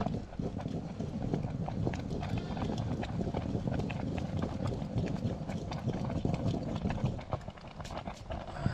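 Livestock moving about: many small, irregular clatters of hooves over a steady low rumble.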